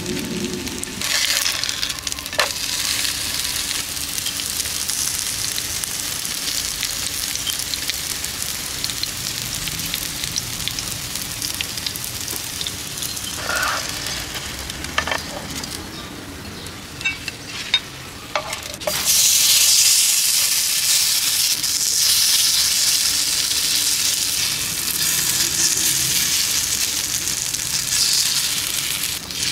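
Oil sizzling steadily under a corn-and-vegetable fritter in a nonstick pan, with a few short spatula scrapes and taps. About two-thirds of the way in the sizzle turns louder and brighter, as raw batter meets the hot oil.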